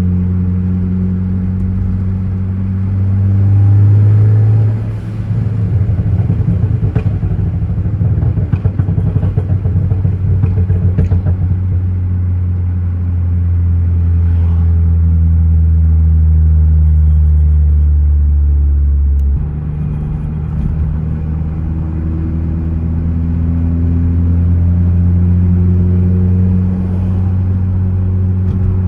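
2014 Ford Focus ST's turbocharged 2.0-litre four-cylinder with a stratified tune, heard from the cabin: the engine swells about four seconds in, then the exhaust crackles and pops rapidly on the overrun for about six seconds. It then pulls steadily, with a sudden drop in engine note a little past halfway, and runs on at a steady pitch.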